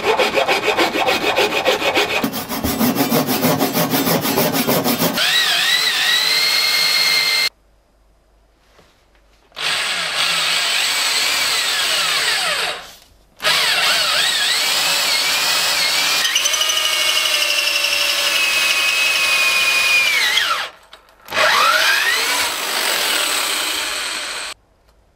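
A hand file rasping along the edge of an oak board, then a corded electric drill with a long wood auger bit boring into a wooden block in four runs with short pauses between them. The motor's whine climbs as each run starts and sinks as it is let off.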